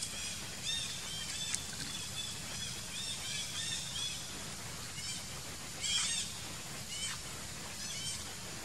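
Long-tailed macaques squealing: runs of short, high-pitched arching calls, the loudest cluster about six seconds in.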